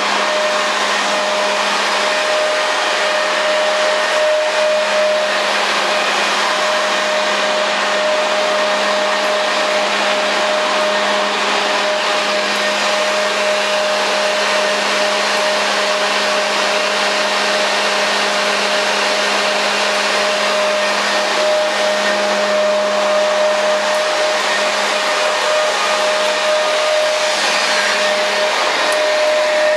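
Electric leaf blower running steadily at full speed, blowing air through a long foil-wrapped duct. It makes a constant high whine and a lower hum over the rush of air.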